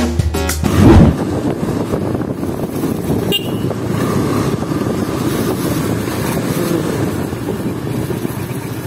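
Music ends with a loud thump about a second in. After that comes a steady low rumble from a KTM motorcycle's engine at low speed, heard from the bike itself, with road and wind noise.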